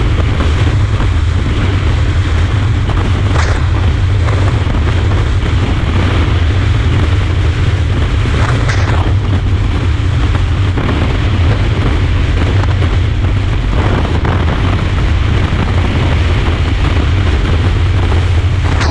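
Strong wind buffeting the camera microphone of a Zanella ZR200 200cc motorcycle riding at speed in a cross wind: a loud steady rumble with rushing hiss, and a couple of brief hissing gusts about three and nine seconds in.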